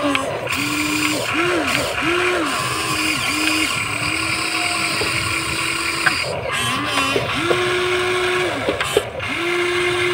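Electric motors of a Huina 1593 remote-control excavator whining in a string of short runs as the boom and bucket move, each run rising in pitch as it starts and falling as it stops, with longer runs about four and seven seconds in. A steady hiss lies underneath.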